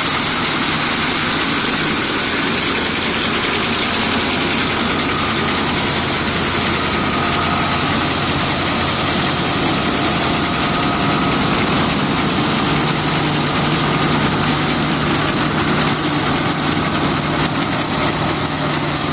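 Dronningborg D880 combine harvester running steadily at work, a constant engine and machinery hum with a dense hiss over it and no change in pace.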